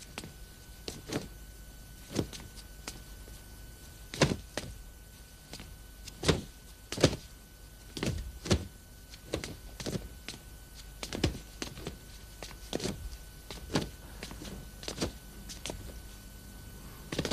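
Straight sword (jian) cutting through the air in a series of quick swishes at irregular intervals, loudest about six to seven seconds in.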